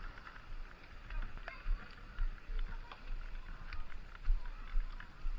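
Floodwater sloshing and splashing as someone wades through it, with scattered small clicks and irregular low thumps.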